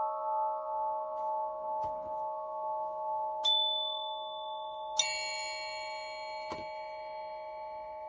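Meditation music of struck metal bell tones, a low cluster of tones ringing on. A higher bell is struck about three and a half seconds in and a brighter, louder one at five seconds, each fading slowly.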